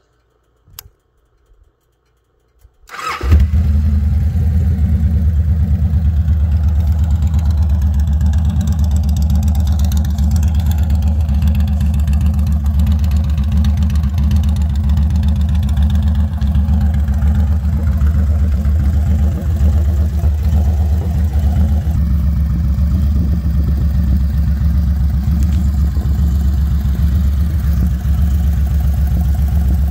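Victory Vegas V-twin motorcycle engine started on the button: a faint click, then about three seconds in the engine catches. It settles into a steady idle through a modified RPW Thor exhaust with an extended tailpipe and a 7-inch resonator.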